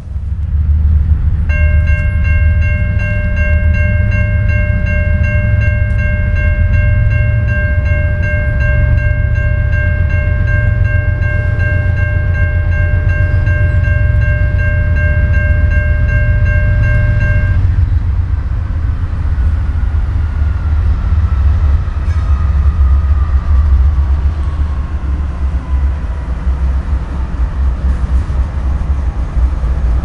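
Railroad crossing warning bell ringing as a steady many-toned ding, starting just after the flashers activate and stopping about 17 seconds in once the gate arms are down. A heavy low rumble runs underneath, and a slowly falling whine follows before the Norfolk Southern diesel locomotives reach the crossing at the end.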